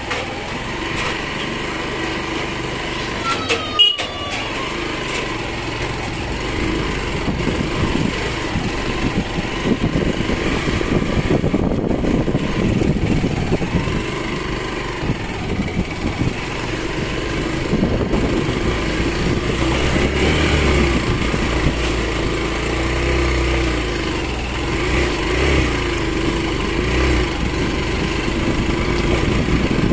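Motorcycle engine running steadily while riding a rough dirt and gravel road, with a single sharp knock about four seconds in.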